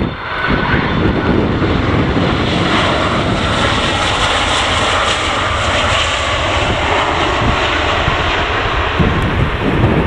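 Airliner engines passing close overhead on approach: a loud, steady rush of engine noise that swells toward the middle and eases off near the end, with gusty wind rumbling on the microphone underneath.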